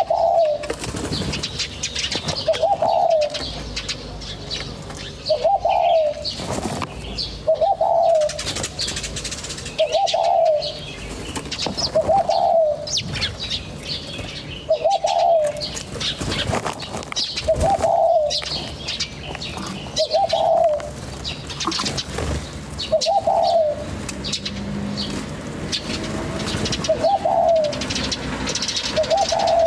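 Birds calling: one bird repeats a short, low rise-and-fall call about every two and a half seconds, about a dozen times, over scattered higher chirps from other small birds.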